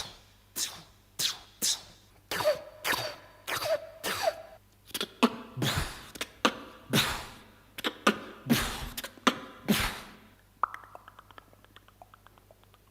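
A man making mouth sound effects: a run of short, sharp bursts about two a second for around ten seconds, then only faint rapid mouth clicks near the end.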